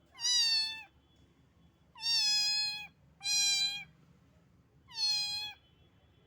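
A small kitten meowing four times, short high-pitched calls each falling slightly in pitch, with pauses of about a second between them.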